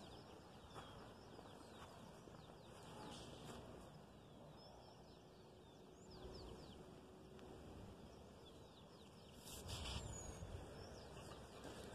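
Faint countryside ambience with small birds chirping on and off throughout, many short high chirps. A brief soft rustle comes about ten seconds in.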